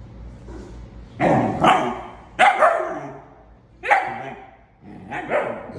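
A dog barking: about six loud barks, mostly in close pairs.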